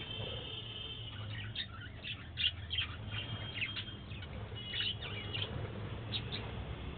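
Budgerigars chirping: many short, high chirps with a few brief held whistles, over a steady low hum.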